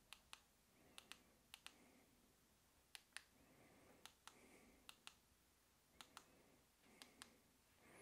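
Faint double clicks of the buttons on a BTech GMRS-V1 handheld radio's keypad being pressed, about one pair a second, eight times, while the radio is set from low to high power.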